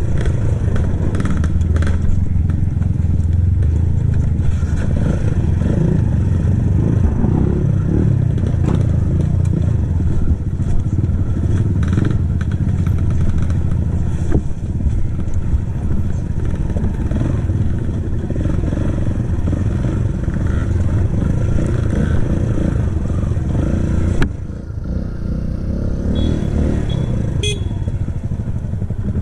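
Kawasaki KLX trail bike's single-cylinder four-stroke engine running through its stock exhaust while riding over rough ground, with clattering knocks from the bike over the terrain. The engine eases off briefly about three-quarters of the way through, then picks up again.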